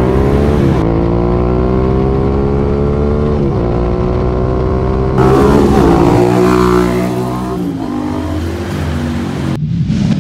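Suzuki SV650A's 645 cc V-twin through an aftermarket full exhaust system with a Black Knight muffler, accelerating hard past on the road: the note climbs, drops back at each gear change and climbs again, several times over.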